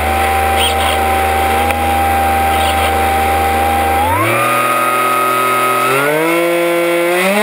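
Small FPV drone's electric motors and propellers humming at a steady pitch. The hum then rises in three quick steps in the second half as the throttle is raised.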